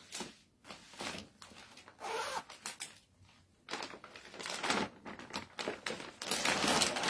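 Clear plastic packaging of a salwar suit piece crinkling and rustling as it is handled and opened, in irregular bursts, the longest near the end.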